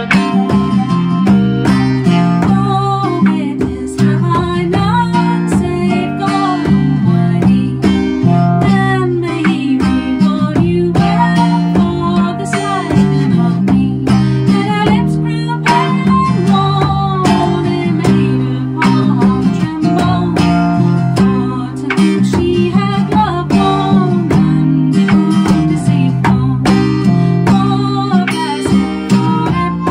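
Acoustic folk band playing: strummed acoustic guitar, fiddle and a frame drum struck with a beater, with a woman singing the melody.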